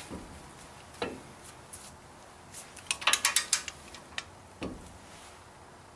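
Wrench clicking and clinking on metal as a Stover lock nut is torqued down onto a steering tie-rod pin. A quick run of sharp clicks comes about three seconds in, with duller knocks near one second and just before five seconds.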